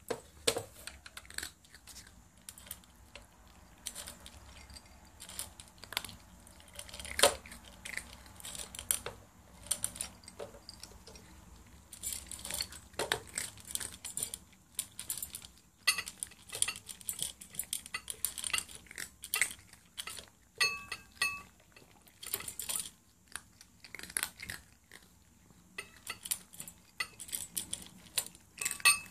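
Two cats eating dry kibble, crunching with irregular clicks and clinks of food and teeth against a ceramic bowl and a stainless steel bowl. The crunching gets busier partway through, and a bowl rings briefly about twenty seconds in.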